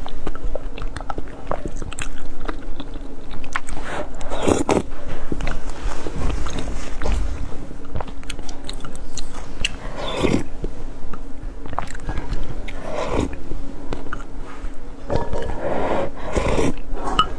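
Close-miked eating sounds: a person sipping and chewing thick lotus root starch paste with glutinous rice balls off a wooden spoon, with a few louder mouth noises spaced through. A faint steady hum sits underneath.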